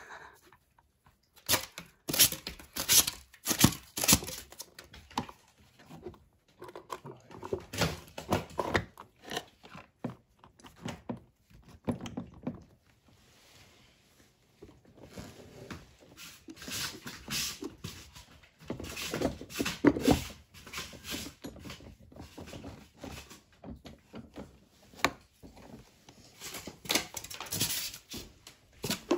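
Pomeranian digging and chewing in a cardboard box of styrofoam packing: irregular scraping, crackling, tearing and knocks of cardboard and foam, with a quieter stretch about halfway through.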